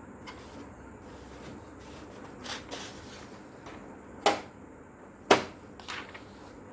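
Electric typewriter mechanism clacking: a handful of sharp, irregular strikes, the two loudest about a second apart past the middle.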